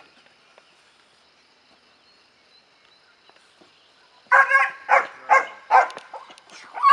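A black German shepherd puppy barking in excitement at a tug the helper drags and swings in front of her, a run of five or six short barks about two a second, starting about four seconds in.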